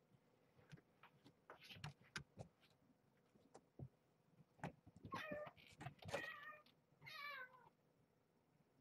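A cat meows three times in quick succession, the last meow falling in pitch, after a few soft knocks.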